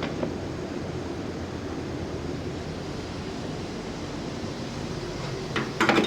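Steady rumble of a semi truck running, with a few quick clicks or knocks just before the end.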